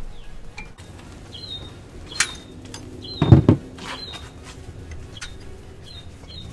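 Light clicks and one dull thump about three seconds in, from hand work on a front brake caliper and brake hose fitting, with short bird chirps repeating in the background.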